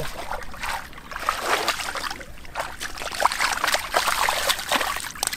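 Hands digging and scooping through wet mud in shallow water: a busy run of irregular splashes and squelches, thicker after about the first second.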